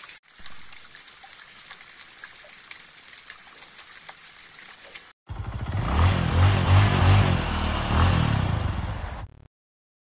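Steady hiss of water from a small waterfall falling into a pool. About five seconds in, it cuts to a much louder outro sound with a pulsing low beat, which lasts about four seconds and stops abruptly.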